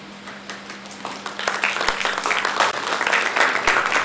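Audience applauding: a few scattered claps that swell into full applause after about a second.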